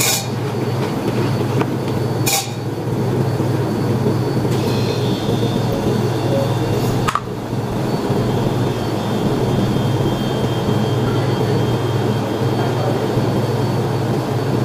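Steady low background hum and rumble, with a couple of brief sharp clicks near the start.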